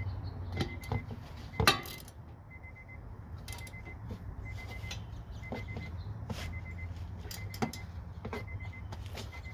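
Metal clinks and knocks of a ratchet and socket being worked on a tight bolt at a car's wheel hub, a dozen or so scattered strikes with one loud clank about two seconds in. Under them run a low steady hum and a faint short beep repeating about once a second.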